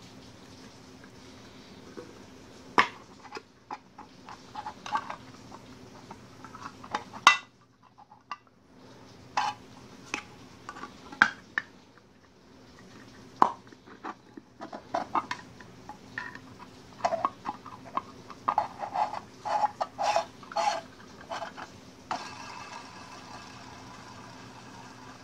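A thin metal rod being pushed and twisted through the centre hole of a plastic jar-lid disc, giving irregular clicks, taps and scrapes of metal on plastic along with hand-handling noise.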